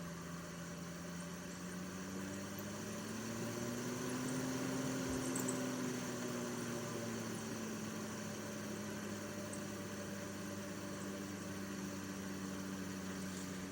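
Air Pro air purifier's fan motor running with a steady hum and a droning tone that slowly rises in pitch and then falls back, which the owner suspects is a bad bearing.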